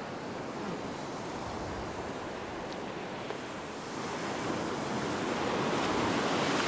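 Ocean surf on a beach: waves breaking and foamy wash running up the sand around the waders' legs, growing louder over the last couple of seconds as a wave washes in.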